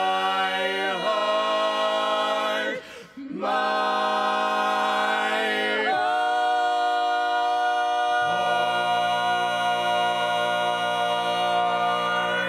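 A barbershop quartet joined by a female voice sings a tag a cappella: close-harmony chords held one after another, with a short breath break about three seconds in. The last long chord, a low bass note coming in past the middle, rings until all the voices cut off together at the end.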